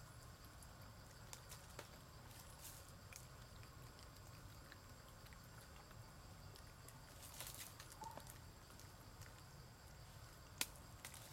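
Near silence: faint outdoor background with a few scattered soft ticks and a brief rustle about seven seconds in.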